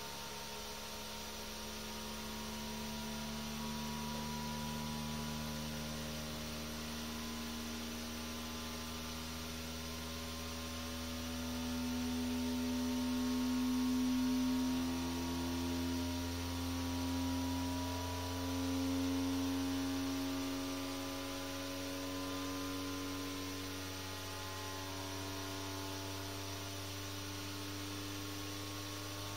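A steady machine hum made of several tones that drift slowly upward in pitch. It grows louder in the middle and cuts off suddenly at the end.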